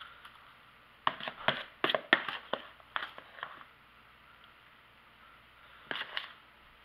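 Metal spoon scraping and clinking against a plastic mixing bowl as it scoops mashed potato filling: a run of short clatters about a second in, then a brief second run near the end.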